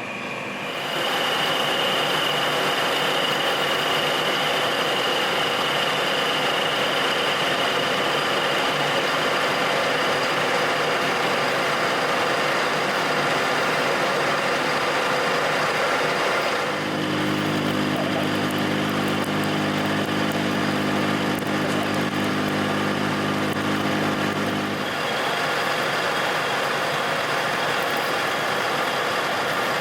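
Steady mechanical running noise from a workshop machine, with a lower humming tone joining for several seconds past the middle.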